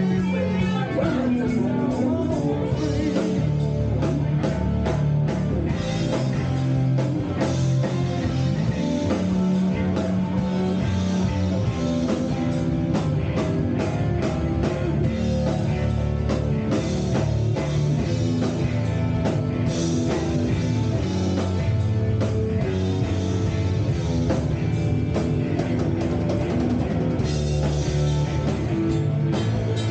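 Live rock band playing loudly and without a break: electric guitars through Marshall amplifiers over a steady drum kit beat.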